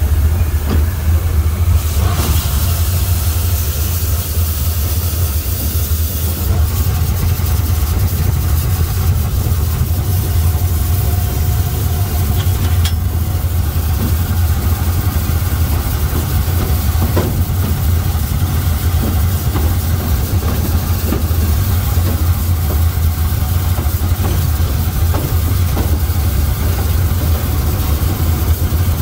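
Oil-burning Bagnall 0-4-0 saddle tank steam locomotive running, heard from its footplate as a steady low rumble with a few light clicks and knocks.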